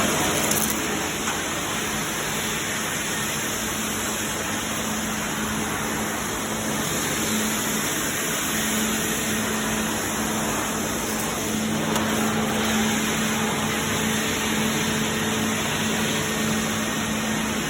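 Tornado TIV3000 three-motor industrial dust extractor running steadily with a constant hum, vacuuming up dried-on fine silica dust from the floor.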